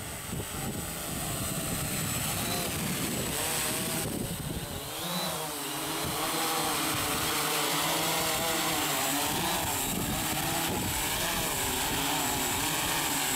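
Walkera Voyager 3 quadcopter's four motors and propellers buzzing in flight, the pitch wavering up and down as it hovers and descends to land. Wind rumbles on the microphone for the first few seconds.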